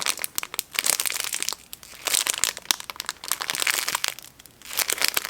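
Plastic packaging crinkling and crackling as it is handled, in several bouts with short pauses between them.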